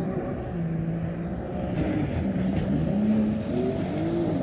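Jet ski engine running, its pitch holding steady and then rising and falling several times as the throttle is worked.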